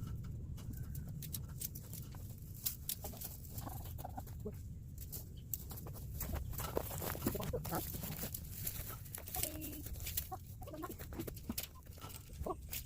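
Chickens clucking now and then, over many short sharp clicks and rattles and a steady low rumble.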